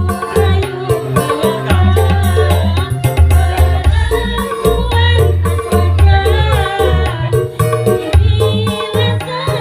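Women's choir singing a devotional song in unison, with low drums beating steadily under the voices.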